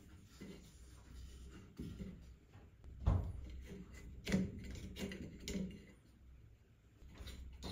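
A cotton swab scrapes and rubs along the plastic blades and housing of a ceiling exhaust fan, with a few soft knocks. The sharpest comes about three seconds in, and others follow a little after four and five seconds.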